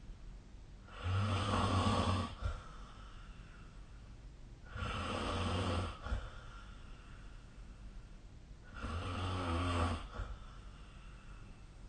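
A sleeping person snoring: three snores, each about a second long with a low rattling rumble, coming about every four seconds, and a fourth starting near the end.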